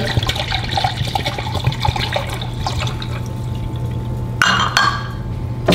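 Gin being poured from a bottle into a glass measuring cup, a steady trickle of liquid filling the cup, with a brief louder rush about four and a half seconds in.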